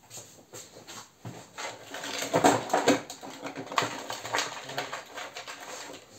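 Hands working inside a hollow 3D-printed plastic fuselage: a run of clicks, knocks and scraping, busiest in the middle seconds.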